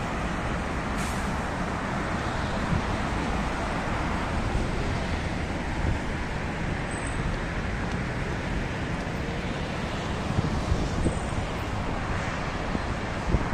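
Steady city road traffic, a continuous rumble of passing vehicles, with a few brief knocks along the way.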